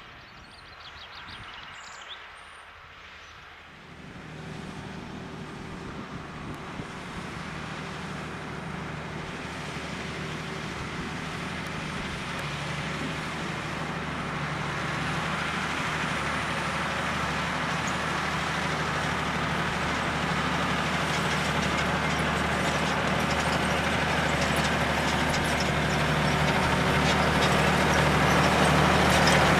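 Valtra tractor's diesel engine running steadily and growing louder as it draws nearer, from faint at first to loud by the end. A few bird chirps sound in the first couple of seconds before the engine comes in.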